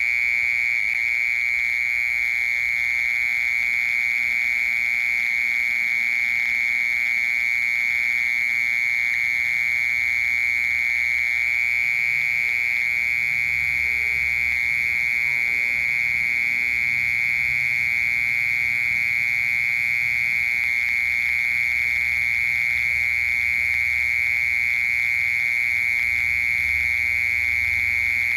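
Mole cricket singing one continuous, steady, high-pitched trill with no pauses.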